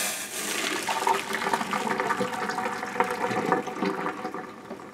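Hot water pouring out of a stainless steel saucepan into a kitchen sink and splashing, as boil-in-bag rice is drained; the pour trails off near the end.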